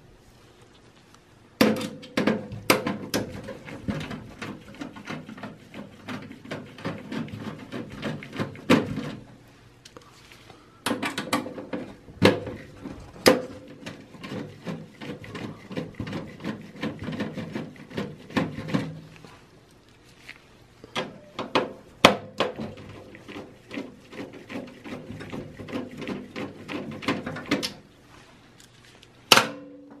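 Screwdriver backing screws out of a motherboard in a steel server chassis. Three long stretches of rapid clicking and scraping, with short pauses between.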